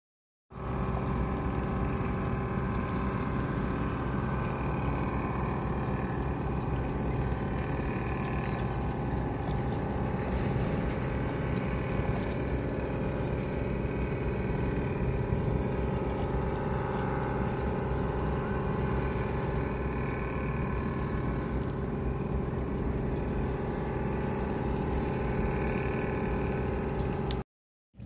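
Boat engine running at a steady speed, a constant drone that holds one pitch throughout; it cuts off suddenly near the end.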